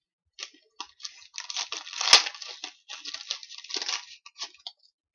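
Crinkling and rustling as trading cards and their packaging are handled, with one sharp snap about two seconds in.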